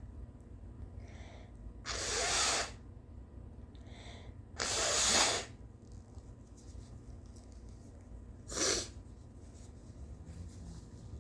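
A woman sneezing three times, a couple of seconds apart, the last sneeze shorter than the first two. A faint breathy intake comes before each of the first two sneezes.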